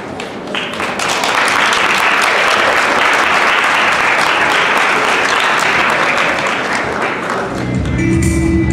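Audience applauding, swelling about a second in and dying away near the end as music with a heavy bass comes in.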